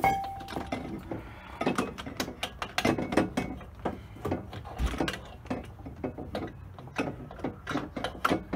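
Hand ratchet wrench clicking in irregular runs as it is worked back and forth, tightening the 11 mm bolts on the rear drum brake backing plate. A sharp clink rings briefly right at the start.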